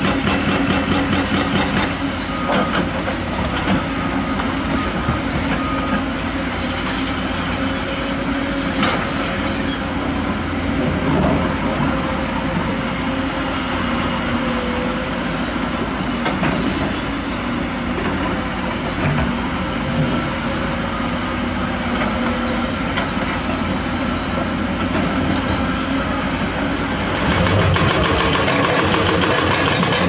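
Kobelco SK200 excavator's diesel engine running steadily under hydraulic load while it digs and loads limestone, with a few knocks of rock. About 27 seconds in, the sound changes to the rapid, continuous hammering of a hydraulic rock breaker working a chisel into limestone.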